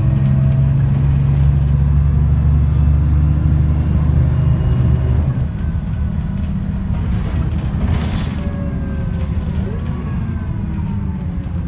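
Alexander Dennis Enviro 300 bus heard from inside the saloon. Its diesel engine drones loudly as it pulls hard under kickdown, then eases off about five and a half seconds in. It leaves a quieter run with a falling whine and a brief hiss about eight seconds in.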